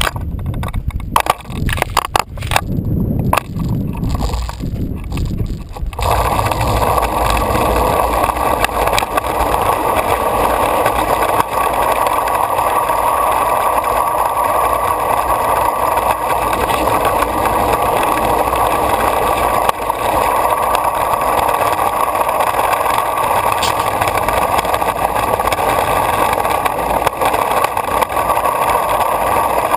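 Longboard wheels rolling over concrete, heard through a board-mounted GoPro: a steady rolling noise. It starts about six seconds in, after a stretch of irregular knocks and thumps.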